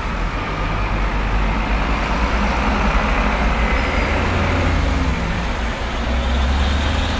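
Busy city street traffic: a steady rumble and tyre hiss of passing cars and heavier vehicles, with a strong low engine drone.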